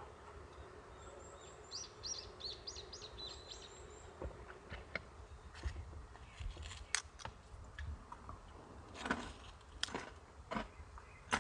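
A bird chirps a quick series of high notes, then light clicks and knocks of things being handled close by.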